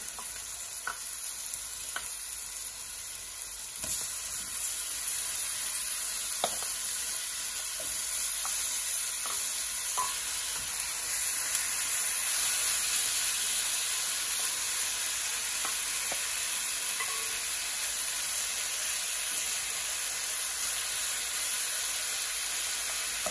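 Marinated chicken pieces sizzling as they hit hot oil with onions and curry powder in a nonstick pot, the sizzle building a little as more goes in. A few light knocks of a wooden spoon stirring them.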